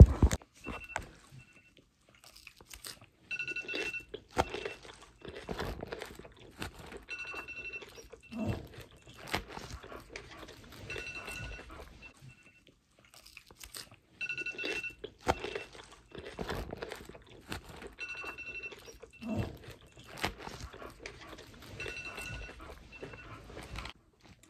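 Crunching and chewing of salad lettuce, close to the microphone, in irregular bites and chews. A knock right at the start, and a faint two-tone beep repeating about every three to four seconds behind it.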